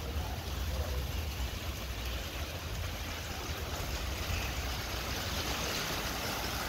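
Steady rain falling in the aftermath of a hailstorm, with wind rumbling on the microphone, the rumble easing after about four seconds.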